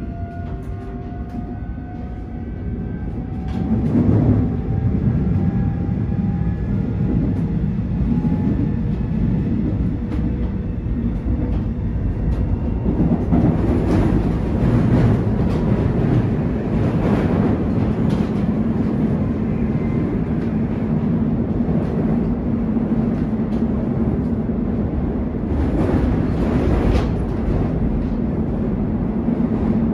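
Heard from inside a Seoul subway Line 4 electric train car running at speed: a steady heavy rumble of wheels on rail. In the first several seconds the electric traction motors give a thin whine that slowly rises in pitch as the train picks up speed. Bursts of clickety-clack from rail joints come around halfway and again near the end.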